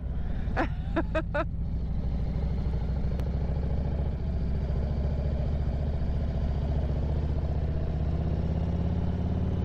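Harley-Davidson Road Glide Special's V-twin engine running steadily at cruising speed, a low, even drone that holds without change.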